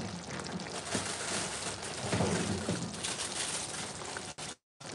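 Pan of ground-beef chili simmering and sizzling on the stove, a steady crackling hiss; the sound cuts out briefly near the end.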